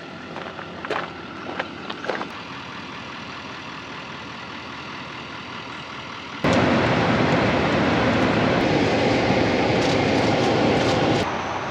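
A few sharp knocks, then a steady background hum. About six and a half seconds in, this cuts abruptly to loud, steady road-vehicle driving noise, which drops away sharply shortly before the end.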